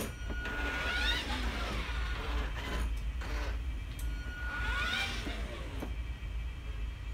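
Electric drive motors of a 12-volt kids' ride-on car (two 35 W gear motors) running as it drives across a tiled floor, whining up in pitch twice, about four seconds apart, as it sets off.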